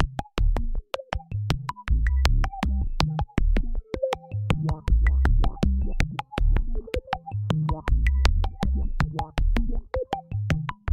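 Electronic closing theme music: a drum-machine beat with sharp ticks about four times a second over a deep synthesizer bass line, with short synth notes above.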